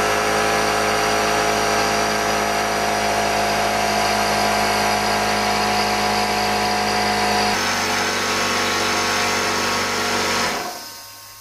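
Porter-Cable pancake air compressor running loudly as its pump fills the tank with air. The steady motor sound drops a little in pitch about seven and a half seconds in and stops near the end.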